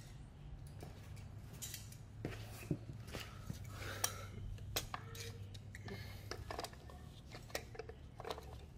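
Scattered light clicks and clatter of pliers working against a plastic radiator cooling-fan shroud and fan-motor mount, over a faint steady low hum.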